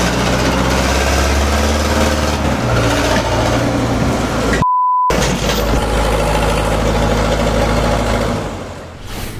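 A motor vehicle engine running loudly and steadily. About halfway through, a single pure beep tone cuts over everything for half a second, like a censor bleep.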